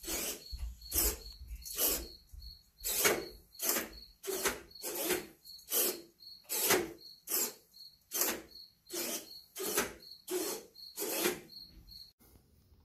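Micro servos whirring in short bursts, one about every 0.7 seconds, as they swing a model hopper car's bottom doors open and shut on command.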